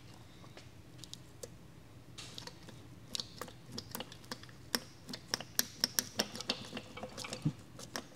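Light, irregular metallic clicks and taps of a long screwdriver and small parts against the cylinder head and rocker gear of a 1275cc A-Series engine, as the rust-stuck head is worked at. The clicks begin about two seconds in and come several to the second.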